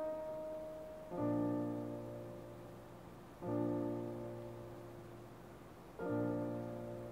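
Slow piano music: a sustained chord struck four times, each left to ring and fade before the next.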